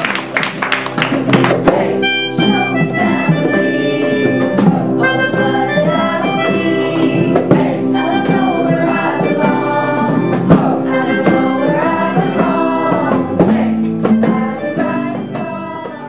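Music with a melody over steady low accompaniment, fading out near the end.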